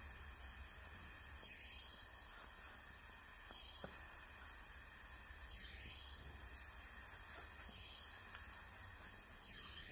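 Oxy-gas brazing torch flame hissing steadily and faintly as it heats a bronze joint for brazing with silver filler rod.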